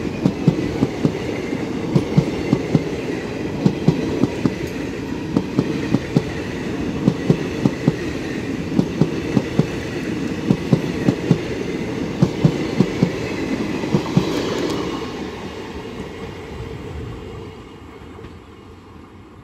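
Indian Railways passenger coaches passing close at speed, their wheels clattering in a steady rhythm over the rail joints. About fifteen seconds in, the last coach goes by and the rumble fades as the train recedes.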